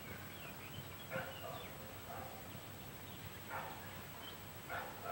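A dog barking faintly, a handful of single barks spaced about a second or more apart, with a few high bird chirps in the first two seconds.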